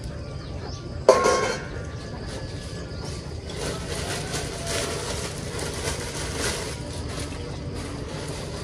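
A metal ladle clanks against a steel stockpot about a second in, ringing briefly. Thin plastic bags then rustle and crinkle as they are handled for several seconds, over a steady low rumble.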